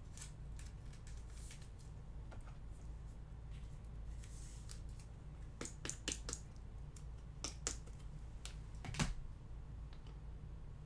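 Faint scattered light clicks and taps over a low steady hum, with a quick run of clicks around the middle and a louder tap near the end.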